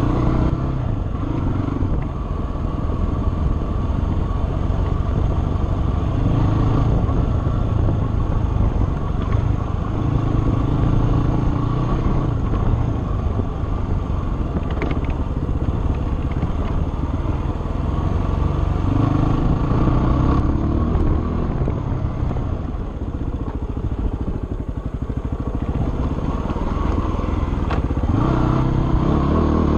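Dirt bike engine running under load on a trail ride, its pitch rising and falling every few seconds as the throttle opens and closes, over a steady low rumble.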